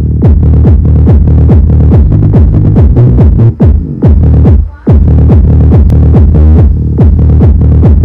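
Techno-style electronic dance music played loud through a 12-inch ADS 1286 double-coil subwoofer in an MDF box, heavy in the bass. A fast kick beat, about four a second, each kick dropping in pitch, with a brief break about four and a half seconds in.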